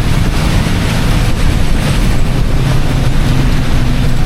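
City bus running through heavy rain: a steady low engine and road rumble under a constant hiss of rain and wet road.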